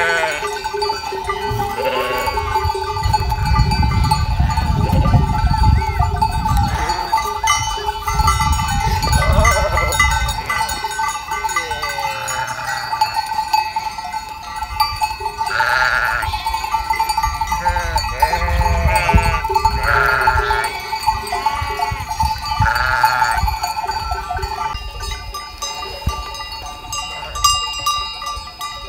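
A flock of sheep bleating in many overlapping calls, with the flock's bells ringing steadily. Gusts of wind rumble on the microphone twice, in the first third and about two thirds of the way through.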